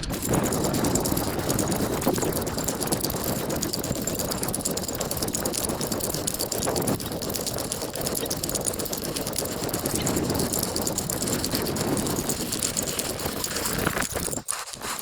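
A person running across a field, with continuous footfalls and the rustle of clothing and gear close to the microphone. It stops about half a second before the end.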